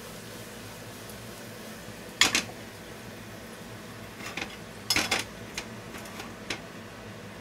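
A spatula knocking and scraping against a hammered stainless steel frying pan: a sharp clatter about two seconds in, a cluster of knocks around the middle, then a few lighter taps, over a steady faint background noise.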